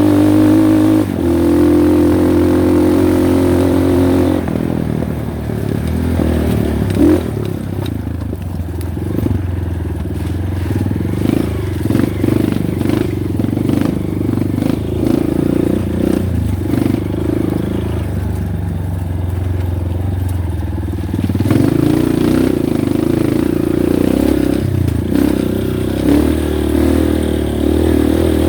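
Honda Win motorcycle's single-cylinder four-stroke engine running as the bike is ridden over a rough, slippery dirt track, with clattering and knocks from the bike over the bumps. The engine note is steady at first, turns uneven through the middle, and is steady again for the last part.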